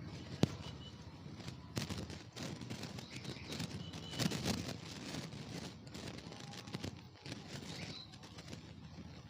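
Muffled road and wind noise picked up inside a motorcycle helmet while riding, with a sharp knock about half a second in and another about two seconds in.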